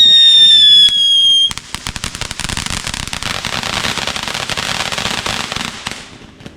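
Consumer firework: a loud, shrill whistle, slowly falling in pitch, cuts off about a second and a half in, and is followed by dense crackling for about four seconds that fades out near the end.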